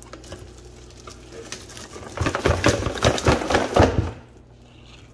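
Plastic bag wrapping on a blender cup being handled and crinkled, a dense burst of rustling and crackling for about two seconds, starting around two seconds in.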